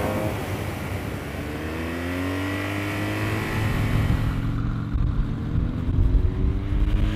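Motorcycle engine accelerating, its pitch rising, dropping back about half a second in and rising again, over a strong low rumble.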